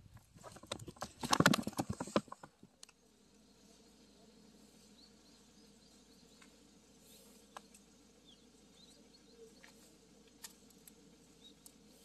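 About two seconds of loud rustling and clicking close to the microphone, then quiet outdoor ambience with faint high chirps and a few soft clicks.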